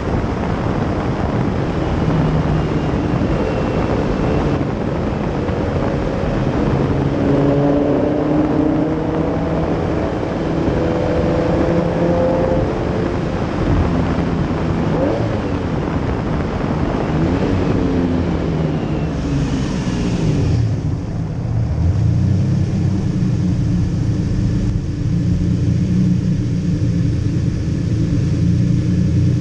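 Lamborghini Diablo SE30's V12 engine running under way, heard close from its engine cover along with wind and road noise, its pitch rising and falling with throttle. About twenty seconds in the wind noise drops away and the engine settles to a lower, steady run as the car slows.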